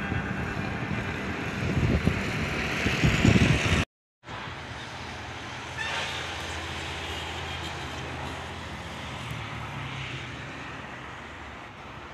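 Road vehicle noise: a motor vehicle's engine and tyres get louder for the first few seconds as it passes close. After a sudden break comes a steadier, quieter engine hum.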